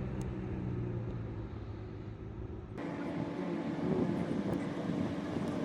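Acura NSX driving, a steady engine and road noise that changes abruptly about three seconds in, as one stretch of driving cuts to another.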